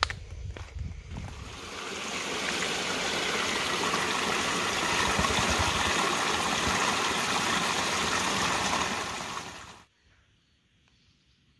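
A few clicks and steps at first, then a steady rush of running water that builds over about two seconds and cuts off suddenly near the end.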